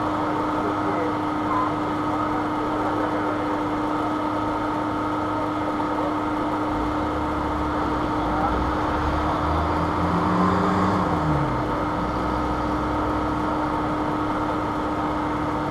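Steady hum with a constant tone over outdoor background noise; about seven seconds in, a motor vehicle's engine grows louder, is loudest around ten seconds with its pitch dropping as it goes by, then fades.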